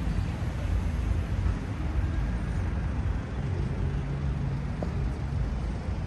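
Steady low rumble of city road traffic, with an engine hum standing out for a second or two past the middle.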